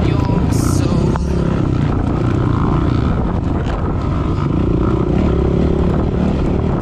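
Off-road motorcycle engine running steadily under way.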